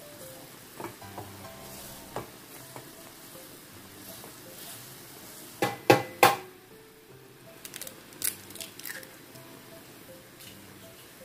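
Instant noodles bubbling in a pan of boiling water, stirred with a silicone spatula that taps lightly against the pan. About halfway through come a few sharp knocks, the loudest sounds, then a run of smaller clicks as a raw egg is cracked into the pan.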